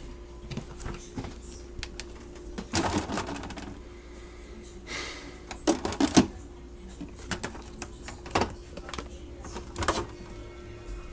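Irregular clatter and knocks, with several loud clusters, over a faint steady hum.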